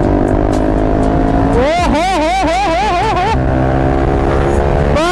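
Bajaj Pulsar RS200's single-cylinder engine with a loud exhaust, running while riding, its pitch slowly rising as the bike gathers speed. A wavering, warbling tone sounds over it for about a second and a half, starting about two seconds in.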